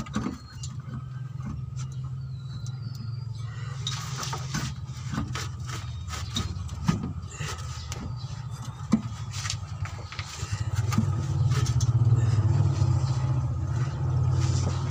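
Scattered metallic clinks and knocks as an L300 van's manual transmission is worked and pulled loose from underneath. Under them runs a steady low motor hum, which grows louder about two-thirds of the way in.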